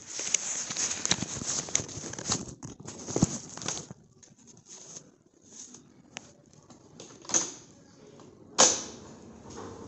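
Phone microphone handling noise: irregular rustling and scraping as the phone rubs against clothing, with a few knocks, a sharp one about three seconds in and the loudest near the end.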